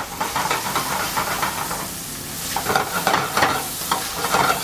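Diced butternut squash and sliced shiitake mushrooms sizzling in hot olive oil in a stainless steel sauté pan, with a steady crackle of spattering oil. From about halfway in, the pan is stirred and the spatters come thicker.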